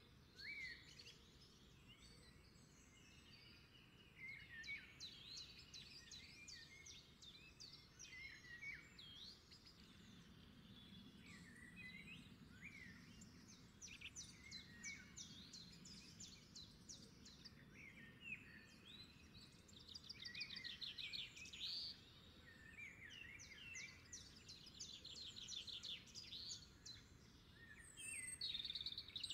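Faint birdsong: several small birds chirping and calling over and over, with quick rattling trills now and then, over a low steady background hiss.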